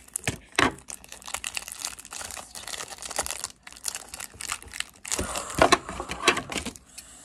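Clear plastic wrapping on a stack of trading cards crinkling and tearing as it is pulled off by hand, in close, irregular crackles that grow loudest about five seconds in.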